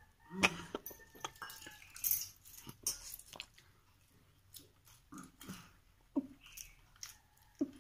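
Eating watered rice and mushroom curry by hand: chewing and wet mouth noises in short irregular bursts. About half a second in, a steel tumbler is set down with a brief metallic clink and ring.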